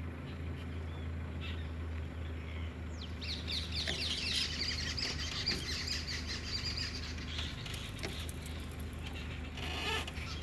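Birds chirping in a quick run of high, short calls for a few seconds, over the low steady hum of a stopped vehicle's idling engine.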